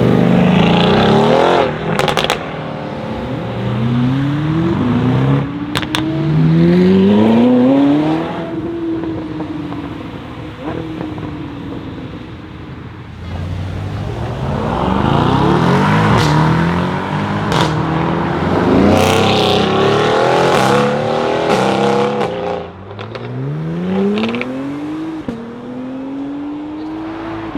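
Mercedes-AMG GT R's twin-turbo V8 with an aftermarket exhaust accelerating hard in several runs, its pitch climbing and dropping back at each upshift, with sharp pops and crackles from the exhaust.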